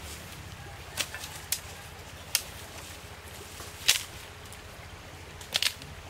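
Sharp cracks of dry sticks and vines snapping as they are pulled and broken by hand, about five in all, the loudest about four seconds in and a quick double crack near the end.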